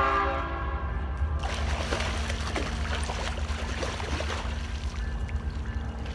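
A train horn sounding a steady chord, cutting off about a second and a half in, over a steady low rumble. A hooked salmon then thrashes and splashes at the water's surface.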